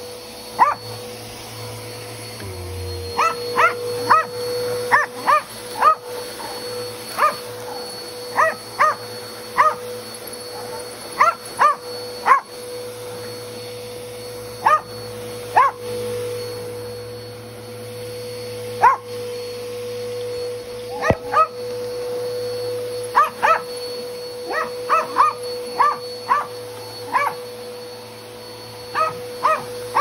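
A small dog barking sharp, high yips in quick bursts of two to five, dozens in all, at an upright vacuum cleaner. The vacuum's motor runs steadily underneath with a constant hum and whine.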